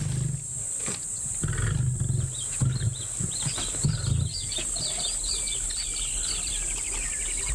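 A series of short, low animal grunts over a steady high insect buzz, with birds chirping in the second half.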